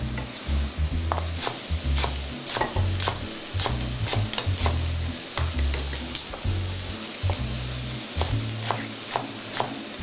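Sliced mushrooms sizzling in a frying pan while being stirred, with many short, irregular clicks of a utensil knocking against the pan. Background music with a low bass line runs underneath.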